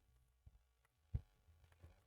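Near silence, broken by two short knocks, the louder one a little over a second in.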